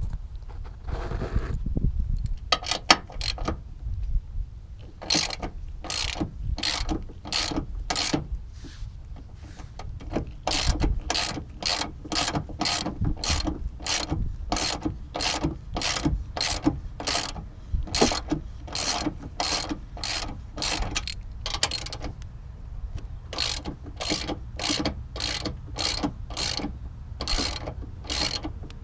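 Hand ratchet with a 13mm socket clicking in quick repeated strokes, loosening the strut-top nuts on the Mustang's strut tower, with a couple of short pauses.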